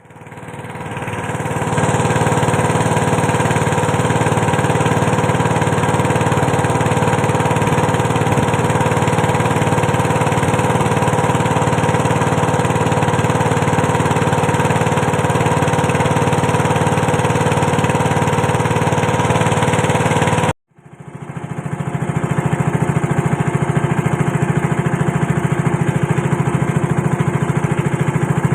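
A small engine running steadily. It cuts off abruptly about twenty seconds in, then builds back up and runs on.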